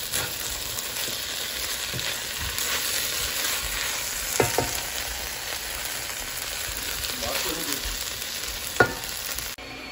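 Mixed vegetables and scrambled egg sizzling in a hot non-stick wok while a spatula stirs and scrapes through them, with sharp knocks of the spatula on the pan about four and a half seconds in and again near nine seconds. The sizzling cuts off suddenly just before the end.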